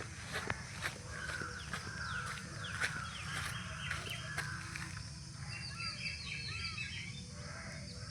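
Birds calling outdoors: a series of short calls and chirps, busier in the second half, over a steady low rumble.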